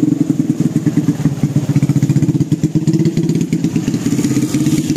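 An engine running steadily close by, with a fast, even firing pulse.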